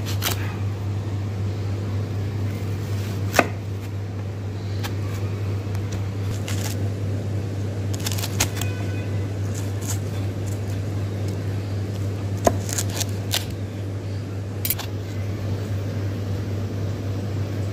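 Knife cutting through watermelon flesh and rind, with occasional sharp knocks of the blade against the cutting board at uneven intervals, over a steady low hum.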